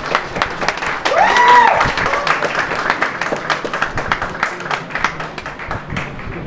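Audience applauding with dense, irregular clapping in a hall, and a single high cheer rising and falling about a second in.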